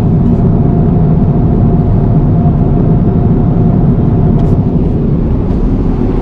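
Airbus A350-1000 cabin noise on descent: a steady low roar of the engines and rushing air, with a faint steady whine over it for the first few seconds.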